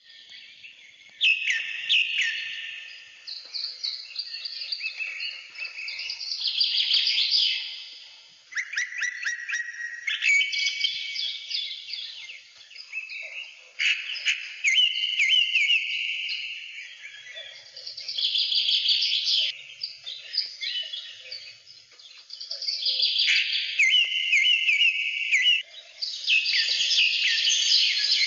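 Wild birds singing: overlapping high chirps and fast trilled phrases that swell in bursts every few seconds.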